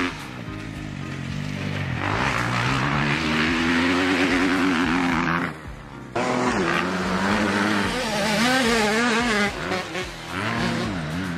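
Motocross dirt bike engine revving up and down hard as the bike rides the track. The revs rise and fall repeatedly and drop away for under a second about five and a half seconds in.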